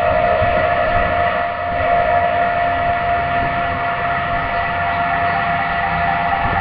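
Steady droning hum of several held tones, the strongest a mid-pitched whine, over a low rumble; the recordist takes it for the sound of a UFO hovering overhead.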